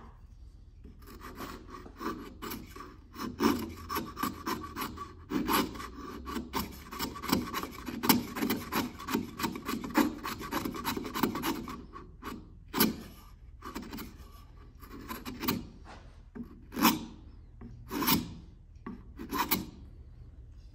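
A freshly sharpened Robert Sorby chisel paring thin shavings off the end grain of dry hard maple (6% moisture content) by hand. There is a fast run of short scraping strokes for about ten seconds, then a pause and five slower, separate strokes.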